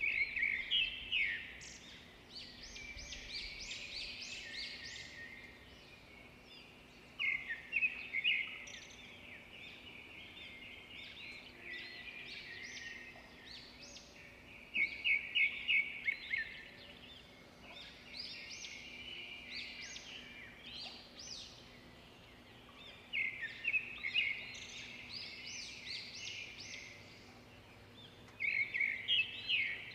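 Songbird singing the same song over and over, a phrase about every seven seconds, each opening with a quick run of loud, sharp notes and trailing into softer chirping.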